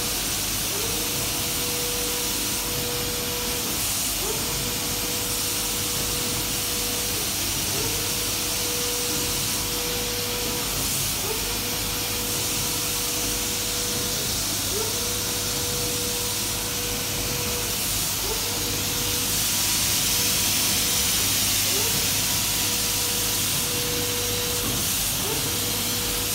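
Flatbed printer running: a steady hiss with a motor whine that rises quickly, holds for about two and a half seconds and stops, repeating about every three and a half seconds as the print carriage makes its passes.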